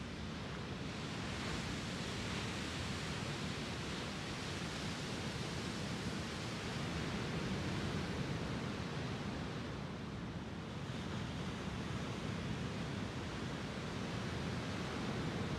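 Small waves on Lake Superior breaking and washing up a sandy beach: a steady rush of surf that swells and eases over several seconds, dipping briefly about two-thirds of the way through.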